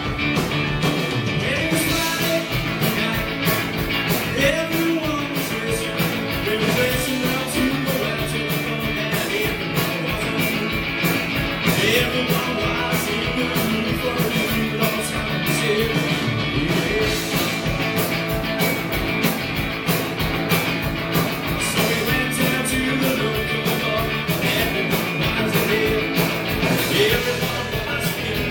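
Live rock band playing a song: a steady drum beat under guitars, with a singer's voice wavering over the top.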